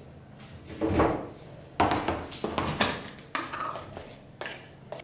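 Breakfast being made at a kitchen counter: a bowl, spoon and other kitchenware handled, giving about half a dozen separate knocks and clinks.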